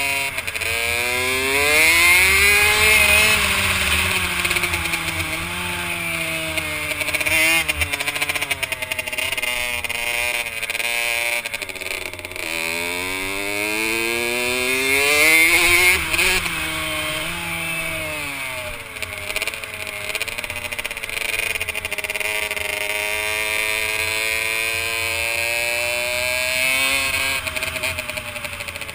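Kawasaki KX65 two-stroke single-cylinder engine at race throttle, heard from on the bike. Its pitch climbs in steps as it pulls through the gears and drops sharply when the rider backs off for the turns, most steeply about sixteen seconds in.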